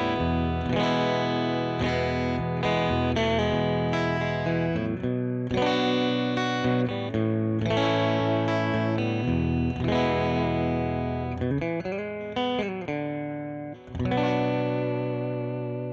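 Gretsch Electromatic G5420T hollowbody electric guitar played through the clean channel of a Mesa Boogie Mark V 25 amp: a slow riff of ringing chords and single notes. Some notes bend in pitch, and near the end a last chord is struck and left to ring.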